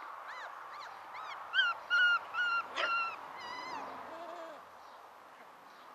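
Month-old Dobermann puppies yelping: a quick string of about eight short, high-pitched yips, loudest in the middle, followed by a lower whine.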